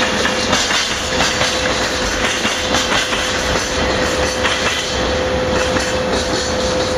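Freight train wagons rolling past, wheels clattering steadily over the rail joints, with a steady whine held underneath.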